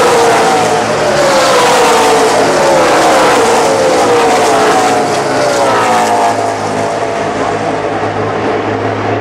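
A pack of NASCAR race trucks' V8 engines running at full throttle as they pass, many overlapping engine notes each falling in pitch as the trucks go by. After about six seconds the sound settles into a steadier, more distant drone.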